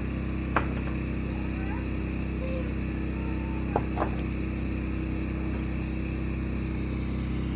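A steady low motor hum, with a sharp click about half a second in and two more close together around four seconds in.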